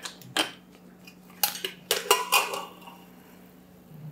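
Stainless-steel pressure cooker lid being twisted free and lifted off: a string of sharp metallic clanks and knocks, the last few ringing briefly.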